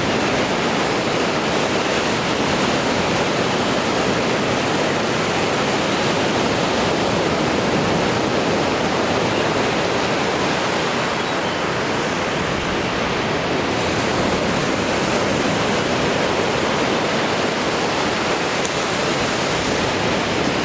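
Baltic Sea surf washing onto the shore in a steady, unbroken rush.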